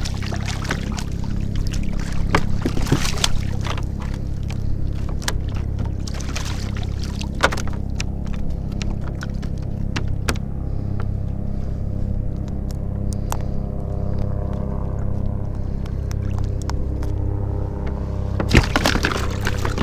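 A steady low motor drone runs under everything. Water splashes in the first few seconds as a small fish is grabbed from beside the kayak, and scattered clicks and knocks follow while it is unhooked, with one louder knock near the end.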